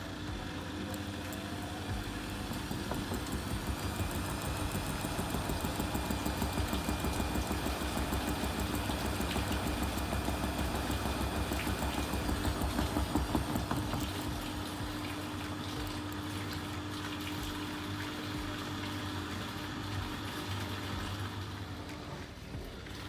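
Vestel washing machine running, its motor turning the drum with a fast, even pulsing over a steady hum. The pulsing builds for the first few seconds and eases off about 14 seconds in.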